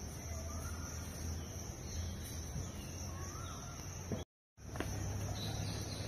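Outdoor ambience among trees: a steady high insect drone, a few faint bird calls and a low hum underneath. The sound cuts out completely for a moment a little over two-thirds of the way through.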